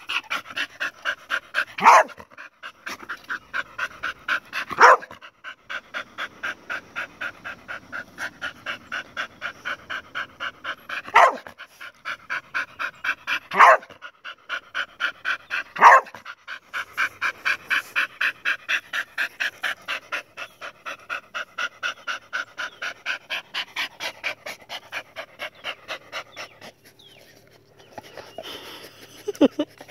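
An agitated dog panting hard and fast with a whine in each breath, about three pants a second, broken by five sharp barks. The panting stops a few seconds before the end.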